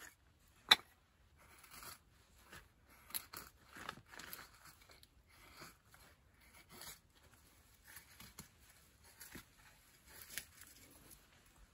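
Split wooden kindling sticks being handled and stacked by gloved hands: a sharp wooden knock about a second in, then scattered light clacks, scrapes and rustles.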